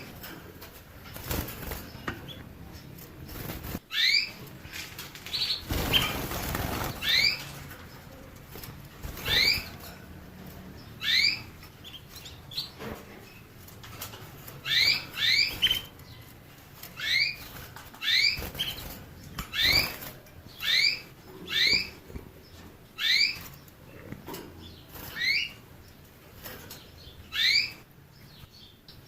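A small songbird calling with short chirps that each rise quickly in pitch, about twenty of them, one every second or two and sometimes in quick pairs. A couple of bursts of rustling noise come in the first several seconds.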